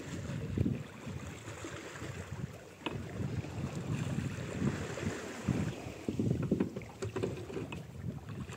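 Wind gusting on the microphone over water lapping against a wooden fishing boat's hull, with a few faint knocks.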